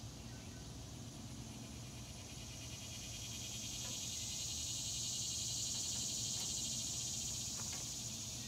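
Insects trilling in a steady high chorus of rapid pulses, swelling louder midway, with a few faint clicks near the end.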